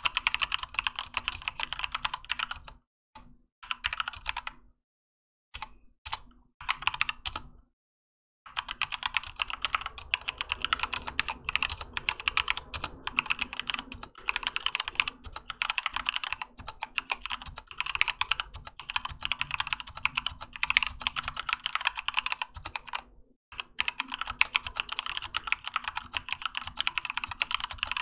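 Typing on a Keychron K2 mechanical keyboard with Gateron Red linear switches and PBT keycaps: dense runs of keystrokes that stop briefly about three seconds in and again for a few seconds about five seconds in.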